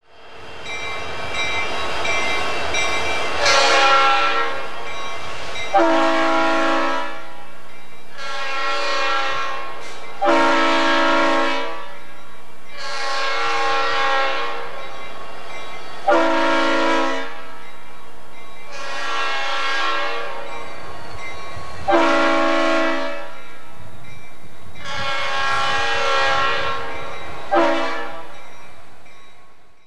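Kansas City Southern diesel locomotive horn sounding a long series of blasts, each a second or two long and a few seconds apart, over the steady noise of a train. The sound fades in at the start.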